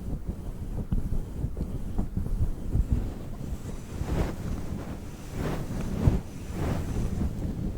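A fluffy microphone cover being rubbed and rolled over with a pink roller right on the microphone: a dense, rumbling rustle, with several slower sweeping strokes in the second half.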